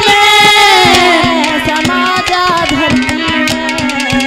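Haryanvi ragni music: a held sung note slides down and gives way to an instrumental passage of steady drone tones and a running beat of hand-drum strokes.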